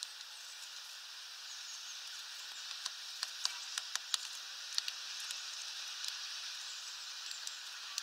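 Great tits on a window bird feeder, their beaks and feet tapping on the feeder tray. The taps come as a run of sharp, irregular clicks, mostly between about three and five seconds in, over a steady hiss.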